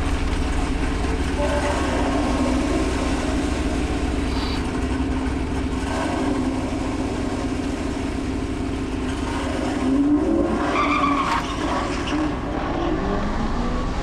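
Cars at a drag strip: a steady, loud run of engine and tyre noise, with several rising engine notes from about ten seconds in.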